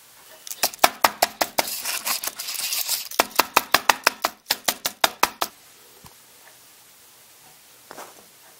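Keys of a low-profile Apple aluminium keyboard clattering as a foil-wrapped chocolate bear is pressed down on them, mashing several keys at once. A busy run of clicks gives way to separate clacks about three a second, and they stop a little past halfway.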